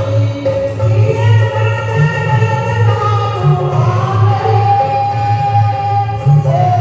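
A Hanuman bhajan being sung over a steady, even low drum beat, with one long held note about four and a half seconds in.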